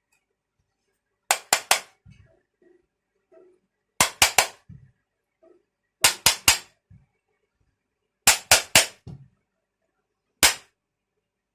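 Sharp metal knocks in four quick groups of three, then a single knock near the end: a hammer striking a ceiling fan's body to open its casing.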